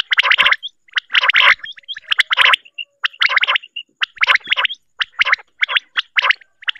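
Female quail calling: a quick run of short, rasping, rattled bursts, about one or two a second with brief gaps. It is a recorded call of the kind played as a lure to draw quail.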